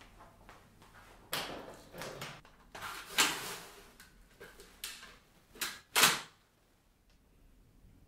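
A Dyson V11 cordless vacuum's clear bin being emptied into a stainless steel pedal bin. A sudden clatter comes about a second in, then a rushing, rattling noise around three seconds in as the bin base drops open and the dust and debris pour out. Two sharp plastic-and-metal clunks follow in quick succession near six seconds, the loudest sounds.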